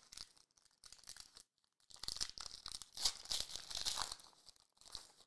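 Plastic foil wrapper of a trading-card pack being torn open and crinkled: light rustles at first, then a dense crackling rustle from about two seconds in, ending with a short crinkle near the end.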